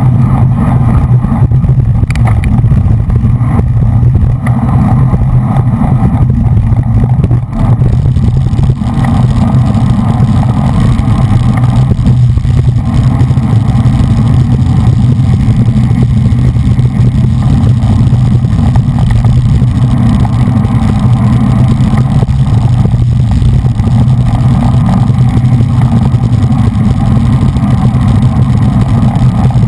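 Wind rushing over the microphone of a GoPro on a road racing bicycle riding at race speed in a bunch: a loud, steady low rumble.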